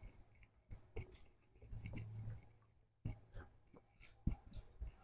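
Faint footsteps and scattered light knocks as a man walks away across a shop floor, with a brief low hum about two seconds in.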